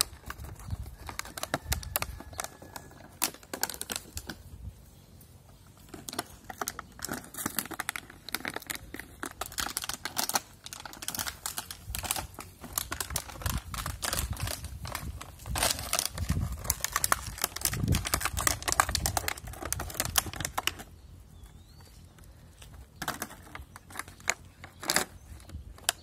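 Empty plastic water bottle crinkling and crackling as puppies chew and tug at it. The crackles come thick and irregular through the middle, with a quieter stretch near the end and a few more crackles after it.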